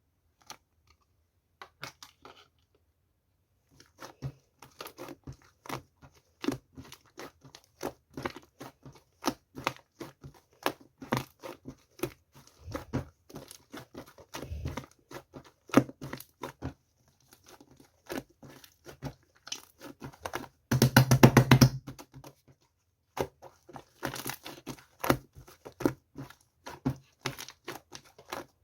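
Close-up handling noises: many short crinkles, taps and tearing sounds, like paper or plastic being handled and torn, with a quick, dense rattle about two-thirds of the way through.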